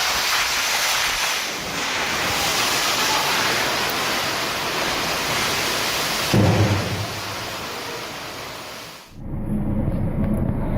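Thunderstorm: a steady roar of heavy rain and wind, with a sudden loud rumble of thunder about six seconds in. Just after nine seconds the sound cuts abruptly to a different low, rumbling noise.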